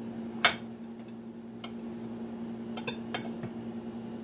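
A metal knife clicking against a glass baking dish while cutting a piece of chocolate cake: one sharp click about half a second in, then a few fainter taps. A steady low hum runs underneath.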